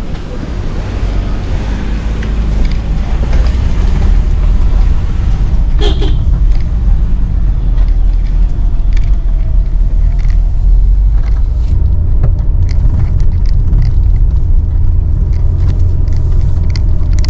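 Loud, steady low rumble of a car in motion.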